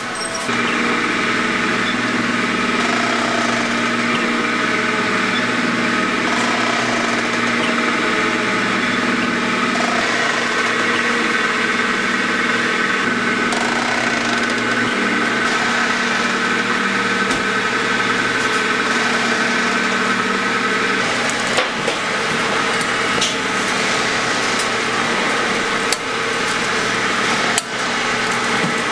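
Automatic fish cake forming and frying machinery running: a steady mechanical hum with several held whining tones. A few sharp clicks and knocks come near the end.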